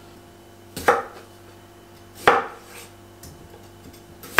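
Kitchen knife cutting small potatoes on a wooden cutting board: three sharp knocks of the blade striking the board, about one and a half seconds apart.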